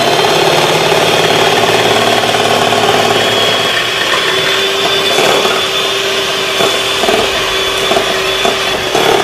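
Electric hand mixer running steadily, its beaters whisking a bowl of egg-and-sugar batter, with a constant high whine over the motor hum.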